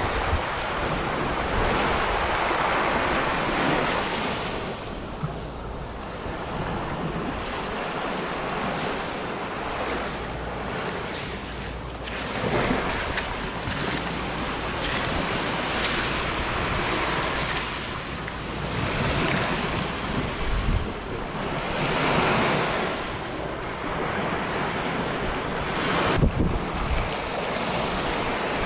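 Sea waves washing onto a sandy shore, swelling and fading every few seconds, with wind rumbling on the microphone.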